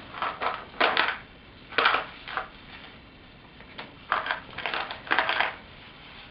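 A dog chewing on a toy: irregular short crunching, crackling bursts, about eight in all, some in quick pairs.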